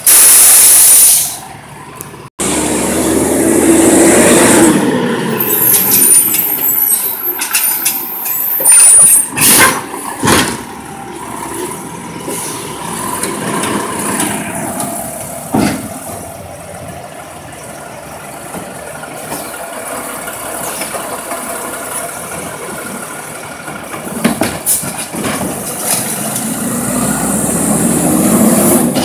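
Natural-gas side-loader garbage truck at work: a loud air-brake hiss, then the engine revving up and down to drive the hydraulic arm as it lifts and dumps a cart into the hopper, with several sharp bangs of the cart and arm about a third and halfway through, and the engine revving again near the end.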